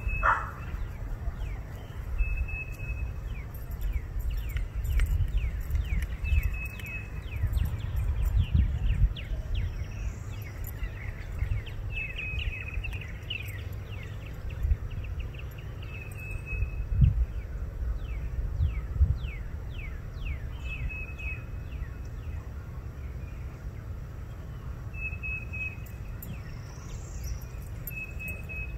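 Small birds calling: a short, steady high note repeated every few seconds, with a run of quick falling chirps in the first half, over a low rumble on the phone's microphone.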